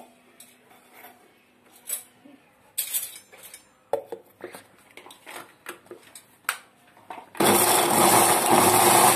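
Light knocks and clatter as chopped vegetables drop into a steel mixer-grinder jar and the lid goes on. About seven seconds in, the electric mixer grinder starts and runs loudly, grinding onion, tomato, green chilli, garlic and ginger into a masala paste.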